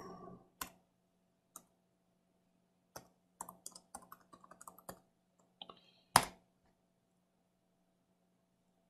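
Computer keyboard typing: scattered keystrokes, then a quick run of them between about three and five seconds in, and one louder key press a little after six seconds, the Enter key sending the command.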